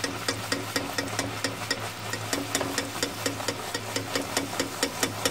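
Rose-cookie batter frying in hot oil on an iron rose-cookie mould: a steady sizzle with a fast, continuous crackle of popping bubbles.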